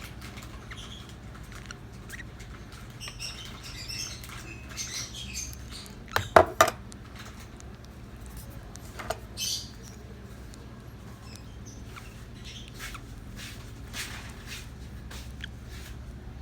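Young African lovebirds making faint, high squeaky chirps while being hand-fed, with scattered small clicks. A sharp cluster of three knocks about six seconds in, and another about nine seconds in, are the loudest sounds.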